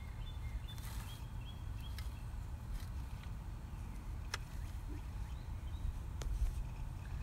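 Metal garden rake working loose, crumbly soil, with scattered scrapes and sharp clicks of the tines and a few steps on the dirt, over a steady low rumble. A few faint bird chirps at the start and again late on.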